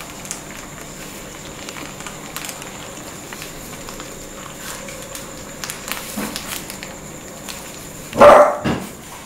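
A shih tzu puppy gives one short, loud yap a little before the end, after several seconds of faint scuffing and small ticks as the puppies mouth a cloth toy on the floor.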